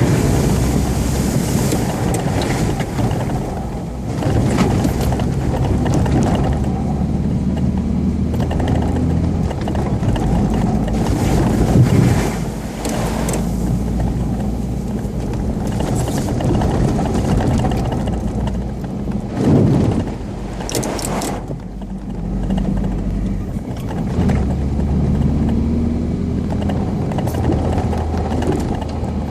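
UAZ Patriot SUV driving off-road, its engine running with changing load under a rumble of road and wind noise, with a few louder bumps along the way.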